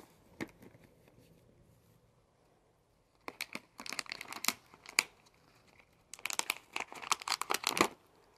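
A plastic pouch of chicken-flavoured cat food crinkling as a cat noses and paws into it: two bouts of sharp rustling, the first about three seconds in, the second about six seconds in and running nearly two seconds.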